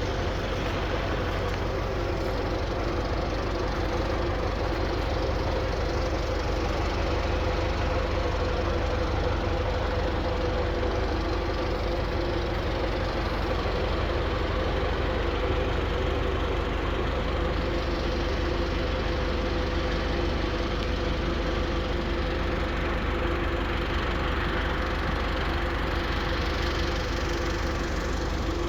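Claas Variant 360 variable-chamber round baler running empty on a test run, driven from a tractor's PTO, with the tractor engine running steadily underneath. It is an even, continuous machine hum with a low rumble.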